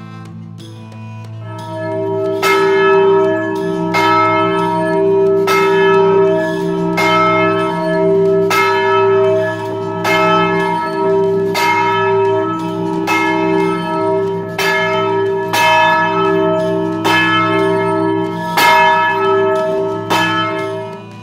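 Large church bell being rung close up in its belfry, the clapper striking about every second and a half and each stroke ringing on in several tones. The strokes begin about two seconds in and are loud throughout.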